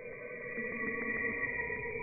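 Space sound presented as the real sound of Saturn: an eerie, layered drone of steady tones crossed by a regular ticking of about five or six ticks a second, swelling slowly louder.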